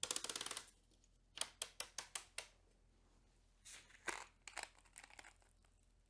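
Ratchet of a torque wrench clicking: a fast run of clicks at the start, then several shorter runs of separate clicks.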